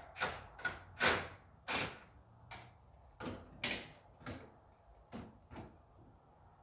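Socket ratchet wrench being worked back and forth on a bolt of a Ford 7610 tractor, a short burst of ratchet clicks with each return swing, about two a second at an uneven pace, loosening the fasteners on parts being removed.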